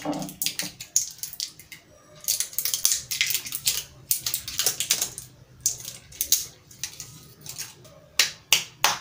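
A metal spoon scraping and clinking in a glass jam jar, then the jar and its metal lid being handled and twisted: an uneven run of sharp clicks and scrapes.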